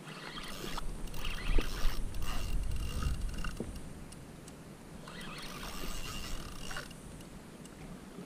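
Spinning reel cranked in two spells, its gears whirring with a thin steady whine, as line is wound in against a hooked fish. Low rumble from wind and handling underneath.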